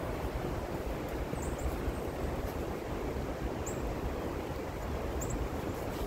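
Wind buffeting the microphone with a steady low rumble, with a few short, high bird chip notes spread through it.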